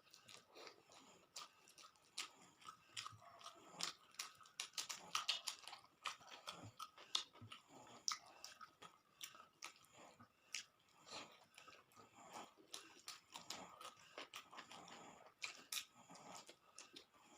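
A person chewing and eating food close to the microphone, with many irregular mouth clicks and smacks.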